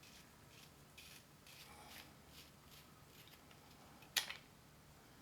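Faint scratchy rubbing of a titanium flashlight's threads being unscrewed by hand, with one sharp click about four seconds in.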